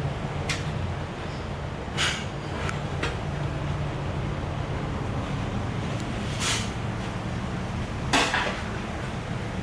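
Several short, light clinks and knocks, scattered and irregular, with the loudest near the end, over a steady low rumble.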